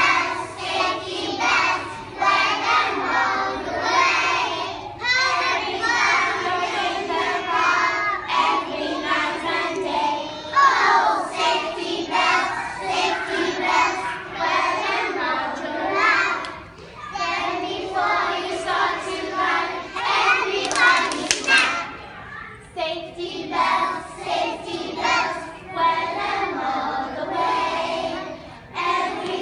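A group of children singing a song together, with hands clapping along.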